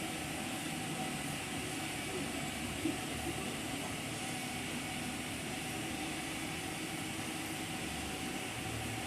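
Steady background noise: an even hiss with a low hum underneath and no distinct events.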